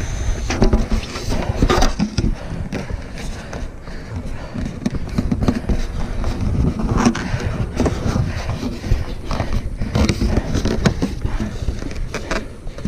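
Handling noise: a hand and clothing rubbing, scraping and knocking against a chest-mounted action camera and its mount, with a low rumble and irregular clicks.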